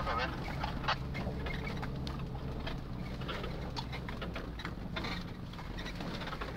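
Nissan Patrol 4x4 heard from inside the cab while driving slowly over a rough dirt track: a steady low engine drone with frequent clicks and rattles from the body and dashboard as it goes over the bumps.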